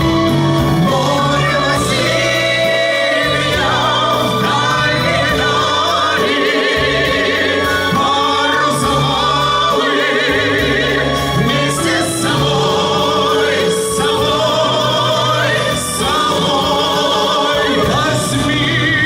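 Several voices singing long held notes with strong vibrato, without clear words, over instrumental accompaniment.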